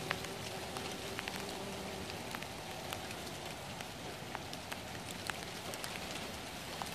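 Light rain pattering on garden leaves and flowers, with many scattered sharp drop ticks. A bumblebee's steady wing buzz sounds over it for the first two seconds, then fades as the bee settles on a marigold.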